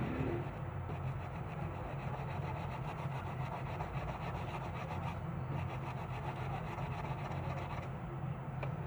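A phone circuit board being scrubbed clean: a continuous rough rubbing over a steady low hum.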